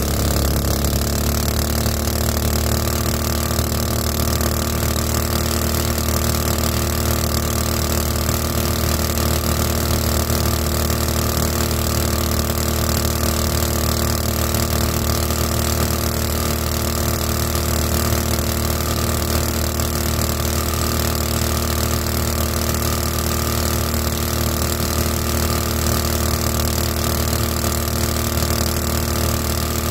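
Small gasoline boat motor, the '224' driving a 7-inch two-blade prop, running steadily at cruising speed under way on a flat-bottom jon boat. Its pitch shifts slightly in the first second and then holds, over a steady hiss.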